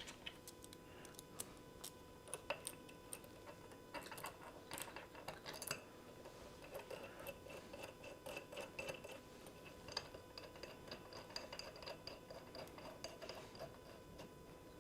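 Faint, scattered light metallic clicks and ticks as a bolt and ground-cable lugs are fitted and tightened by hand on a metal load-cell mounting base, with a small cluster of clicks about four seconds in.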